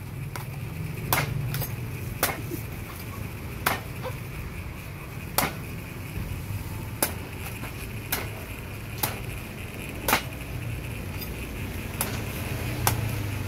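Cleaver chopping into a young green coconut on a wooden chopping block: about ten sharp chops at uneven intervals, over a steady low background rumble.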